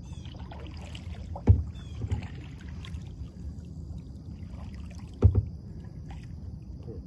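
Two dull knocks on a plastic kayak, about four seconds apart, over a steady low rumble as the kayak drifts.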